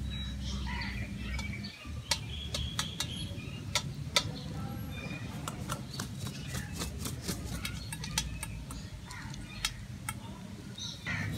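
Hens' beaks pecking at a stainless steel food bowl: a run of sharp ticks, fastest and densest in the middle, with soft chicken calls in between.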